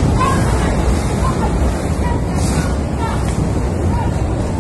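Steady loud rush of wind buffeting a phone microphone, heaviest in the low end, with faint short high chirps about once a second.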